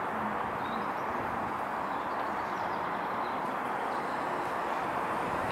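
Steady outdoor traffic noise, an even rushing hum that does not change, with a few faint bird chirps above it.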